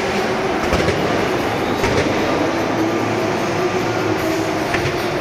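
A vehicle running steadily, a constant rumbling noise with a wavering motor whine and a few faint clicks.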